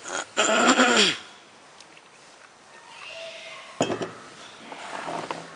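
Tableware clinking, glass and spoon-like chinks with a sharp clink just before four seconds in. The loudest sound is about half a second in: a sound that slides down in pitch for most of a second.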